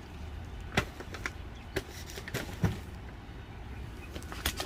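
Cardboard firework cakes being handled and set down: a handful of scattered light knocks and taps over a steady low rumble.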